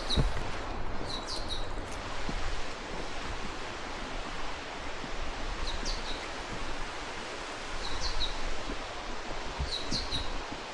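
A small bird chirping in short, high calls about five times over a steady rushing noise outdoors.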